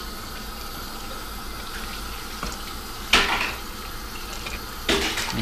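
Wooden spoon stirring uncooked pasta, white sauce and water in a stainless steel Instant Pot inner pot: wet sloshing and scraping, with one louder stroke about three seconds in.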